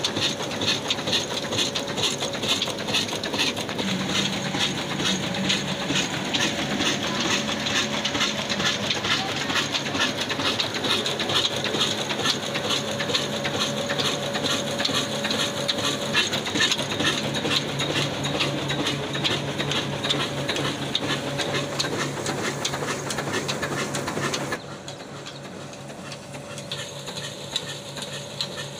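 Old black Ruston single-cylinder diesel engine running steadily with a fast rhythmic chugging clatter, driving a wheat grinding mill through its flywheel and flat belt. The sound drops suddenly quieter near the end.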